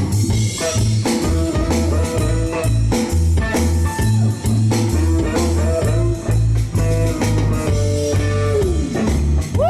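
Live band playing a blues groove: electric guitar picking single-note lead lines over a repeating bass line and drums, with a long note bent down in pitch near the end.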